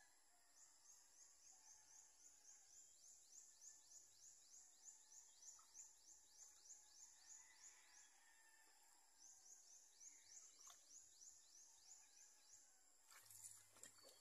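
Faint rural outdoor ambience: a high chirping repeated about four times a second, pausing briefly around the middle and then resuming, over a steady high drone.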